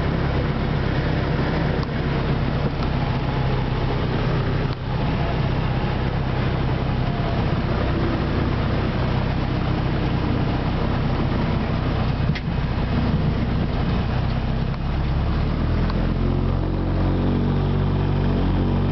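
Seabird Seeker light aircraft's piston engine and propeller running, heard from inside the cockpit with wind and rolling noise as it speeds along the runway. About three quarters of the way through, the noise eases and the engine settles into a steadier, lower drone as the aircraft slows.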